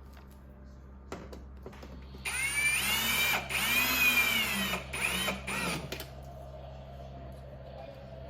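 Power drill/driver running screws back into the dishwasher's door panel in three short spurts, its motor whine rising and falling in pitch as each screw is driven. A few light clicks come before it.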